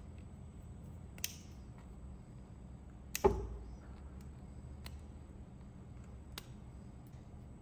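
Flush cutters snipping plastic off a 3D-printed part: four sharp snips spread over several seconds, the loudest about three seconds in, over a steady low hum.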